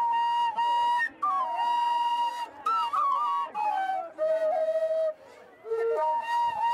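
Background music: a flute playing a slow melody of long held notes with short ornamental turns, pausing briefly near the end.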